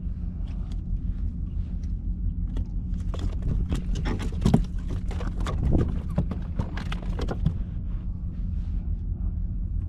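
Handling sounds as a caught speckled trout is unhooked in a kayak, gripped in a plastic fish grip: a busy run of clicks and knocks in the middle, over a steady low rumble.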